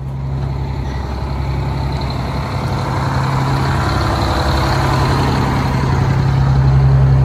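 The diesel engine of a 1989 Crown Supercoach bus running with a steady low drone that grows gradually louder throughout. The engine is still cold.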